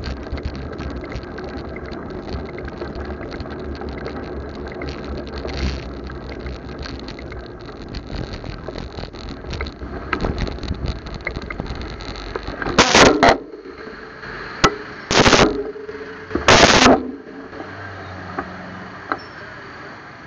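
Steady street noise from the busy roadside, then three loud rustling bumps a little over halfway through. The bumps are the rider's body and clothing knocking against the motorcycle-mounted camera's microphone as he climbs onto the bike.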